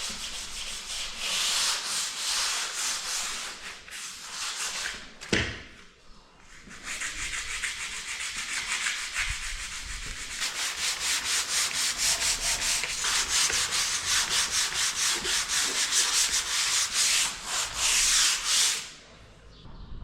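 Abrasive hand sanding of a plastered wall, rapid back-and-forth strokes rubbing down filler and small blemishes. There is a knock about five seconds in and a short pause just after, and the sanding stops about a second before the end.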